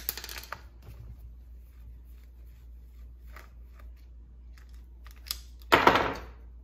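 A few small metallic clicks as a long steel wrench works the nuts on a chainsaw's carburetor bracket, then, near the end, a louder short clatter as the steel wrench is set down on the hard workbench.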